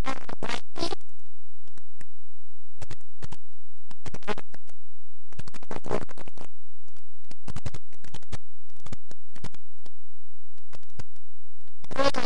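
Choppy music cutting in and out in short broken bursts over a steady low hum.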